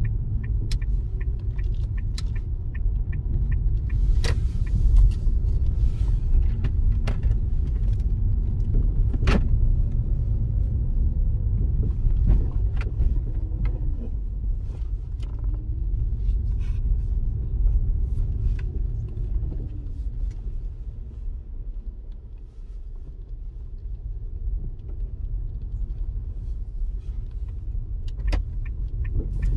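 Inside a car's cabin: steady low engine and road rumble while driving slowly. A turn-signal indicator ticks at about two to three clicks a second for the first few seconds and again near the end.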